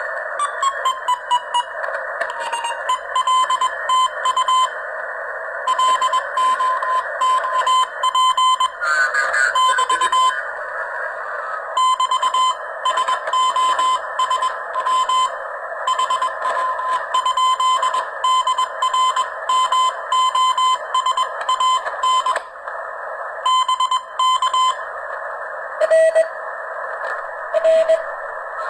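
Morse code (CW) coming through an amateur radio transceiver's speaker: a single tone keyed on and off in dots and dashes over steady receiver hiss. The tone slides down in pitch as the receiver is tuned onto the signal in the first couple of seconds. Near the end a second, lower-pitched keyed tone comes in.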